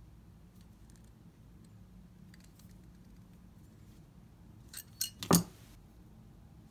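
Orthodontic pliers clicking against the wire arms of a rapid palatal expander as they are bent: a few faint ticks, then a quick cluster of sharp metallic clicks about five seconds in, the last the loudest.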